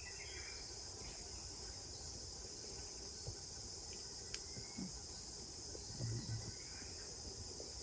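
A steady, high-pitched insect chorus, with a few faint short chirps and a couple of soft knocks.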